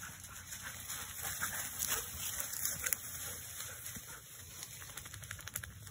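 Dogs moving through dry undergrowth: leaves rustling and twigs crackling. The crackling is thickest about two to three seconds in.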